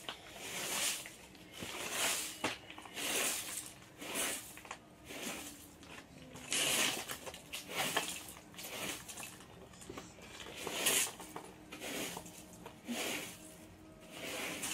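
A broom sweeping leaves and small stones across paving slabs, in short hissing strokes that come irregularly, roughly one a second.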